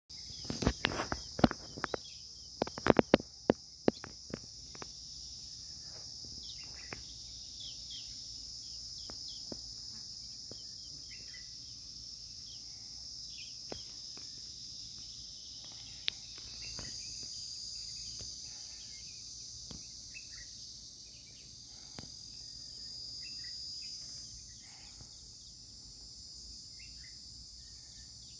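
Steady, high-pitched chorus of insects, crickets or cicadas, with scattered short bird chirps. Sharp clicks and knocks in the first few seconds are the loudest sounds.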